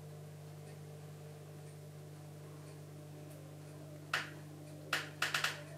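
Steady low electrical hum of running aquarium equipment, such as the external filter's pump. A sharp click sounds about four seconds in, another a little under a second later, then a quick run of three clicks near the end.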